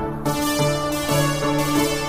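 Background music: a melody of held notes changing about twice a second, growing fuller about a quarter second in.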